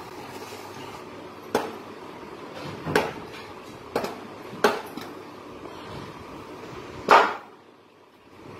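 Heavy curved chopping knife striking raw green mangoes against a wooden block. There are five sharp chops at uneven spacing, and the last one is the loudest.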